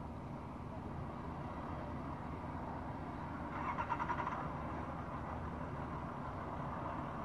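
Steady low rumble of city street traffic. About three and a half seconds in, a brief fast rattle lasting about a second stands out above it.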